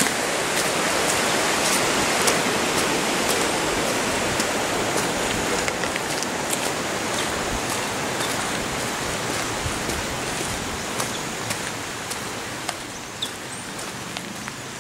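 Rushing water of a shallow rocky stream, a steady hiss that slowly fades. Light footsteps on a gravel dirt road tick through it, standing out more clearly near the end.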